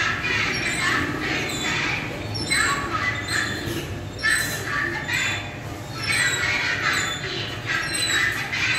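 Din of an indoor kiddie-ride arcade: repeated short, high bursts of sound every second or so over a steady low hum of the hall.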